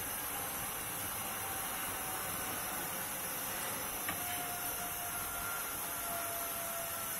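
Steady hiss from the stove under a pot of chicken curry that has just had water added and is not yet boiling. There is a light knock about four seconds in.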